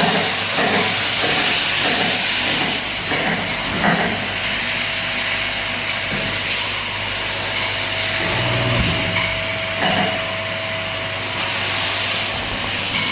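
Automatic bottle filling line running: steady machine noise with a hiss of air and a low hum, and a clatter of short knocks during the first few seconds. A faint steady tone joins about five seconds in and fades near the end.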